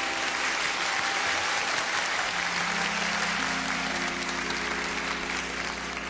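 Audience applauding over music holding long sustained chords; the applause thins out near the end.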